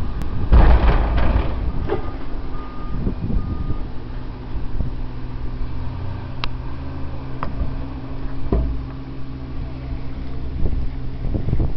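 Wheel loader's diesel engine running steadily while it dumps and spreads dirt, with a rush of noise about a second in as dirt pours from the tipped bucket. Two short beeps sound around three seconds in.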